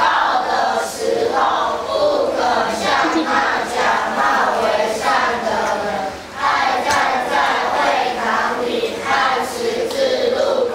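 Children's choir singing in unison, many young voices together, with a brief pause a little after six seconds and a held note near the end.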